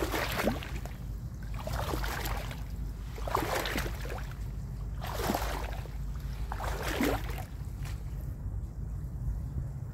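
Water splashing about five times, roughly every second and a half to two seconds, over a steady low wind rumble on the microphone.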